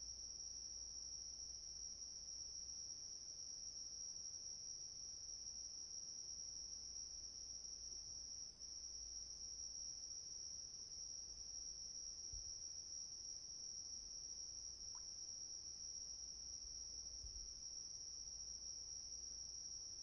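Crickets chirping in a faint, steady, high-pitched chorus that never breaks, over a low background rumble.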